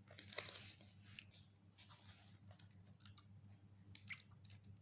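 Faint rustling and light clicks of paper pages being turned in a printed study book, over a low steady hum.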